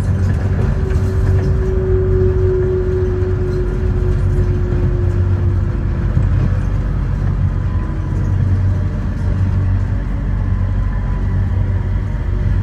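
Sengkang LRT's rubber-tyred automated train running, heard from inside the car: a steady low rumble, with an electric motor whine that falls slowly over the first six seconds and fainter whines after it.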